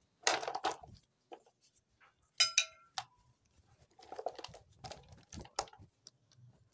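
Thin raw potato squares tipped out of a cloth bag onto a steel tray, clattering in several short bursts, with a brief metallic ring from the tray about two and a half seconds in.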